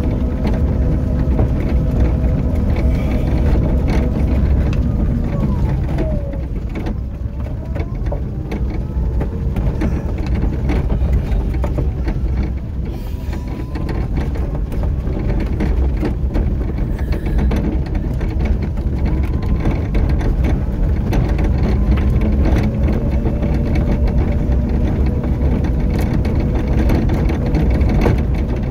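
Small electric vehicle's drive motor whining while travelling along a rough unpaved path, its pitch dipping about five seconds in and rising again later as it slows and speeds up. Under it runs a steady low rumble of the wheels on the rough surface, with scattered small clicks and rattles.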